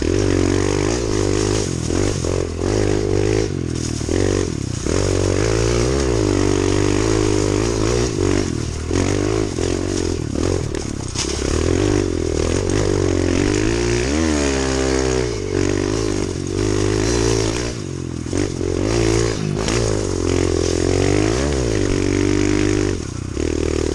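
Kawasaki KLX110 pit bike's small single-cylinder four-stroke engine being ridden hard, its pitch climbing and dropping over and over with the throttle and gear changes.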